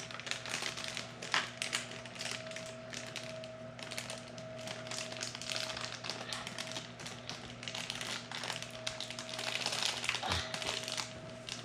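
Crinkly plastic mystery-toy bag being handled, with many small irregular taps and clicks, as a child struggles to tear it open.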